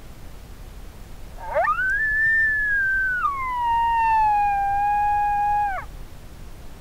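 A recorded coyote howl played through a Lucky Duck Roughneck electronic predator call. It is one long howl that sweeps up quickly, holds high, steps down to a lower held note and drops off at the end.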